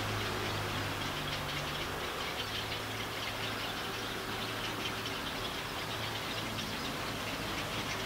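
Steady background rumble with a low hum that fades out briefly about two seconds in, under a high, fine crackling hiss. No distinct owl call stands out.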